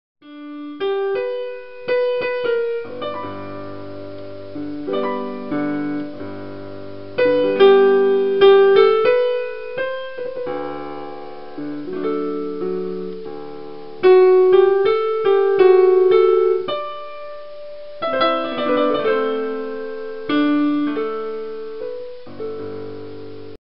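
Solo piano music: a melody over held chords, with phrases that come in louder about two, seven and fourteen seconds in.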